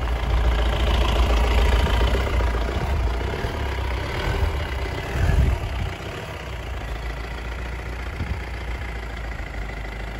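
Mahindra Scorpio S2's diesel engine idling with a steady low rumble. It is louder for the first several seconds, then steady at a lower level from about six seconds in.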